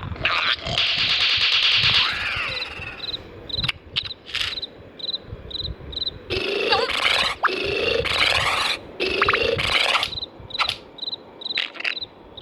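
Cartoon soundtrack: a short high chirp repeating about twice a second, broken by louder bursts of cartoon sound effects and squeaky, sliding character noises, one at the start and several from about halfway on.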